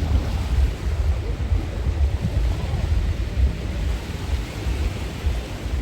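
Wind buffeting the microphone in an uneven low rumble, over a steady wash of sea surf.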